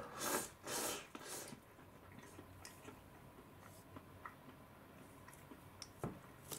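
Three quick slurps of instant cup noodles in the first second and a half, followed by small clicks of chopsticks and cup. A knock about six seconds in as the noodle cup is set down on the table.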